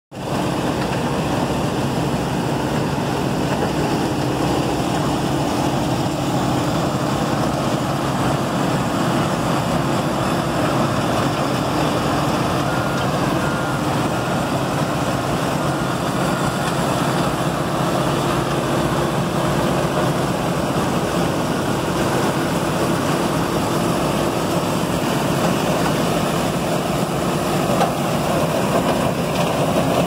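Astec Prosizer 3600 portable crushing and screening plant running steadily while processing recycled asphalt pavement: a constant, loud mix of machinery noise with a low hum.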